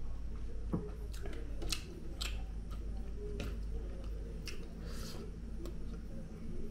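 A person eating rice by hand and chewing: scattered small wet clicks and smacks, with a soft knock just under a second in, over a steady low hum.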